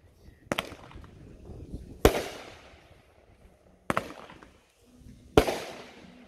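Aerial fireworks bursting overhead: four sharp bangs about a second and a half apart, the third a quick double, each fading away over a second or so.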